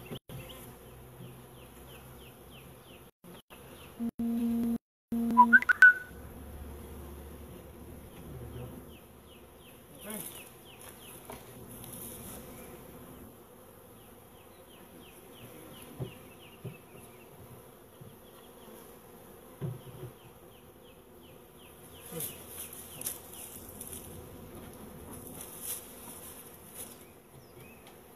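Honeybees from newly installed packages humming around an open hive. About four seconds in, a louder buzz passes close by, followed by a few sharp knocks. Wooden hive parts knock now and then as they are handled, more often near the end.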